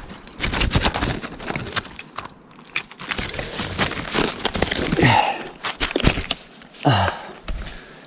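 Footsteps scrambling up a forested slope, with dense crackling of twigs and rustling of leaves underfoot and two short grunts of effort.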